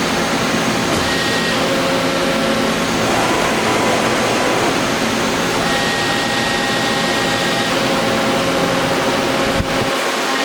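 Accurpress 710012 CNC press brake running: a steady machine hum with whining tones that step to a new pitch every second or two, and a single click near the end.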